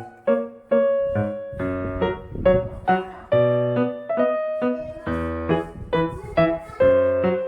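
Background piano music: single notes and chords struck in a steady, lilting rhythm, each ringing and fading.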